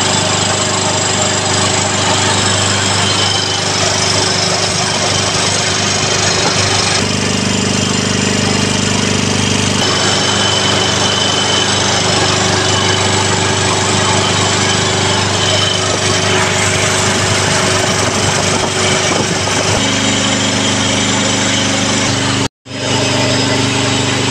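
J. P. Sauer WP151L piston air compressor running steadily, a continuous loud machine noise with a low steady hum. The sound drops out for an instant near the end.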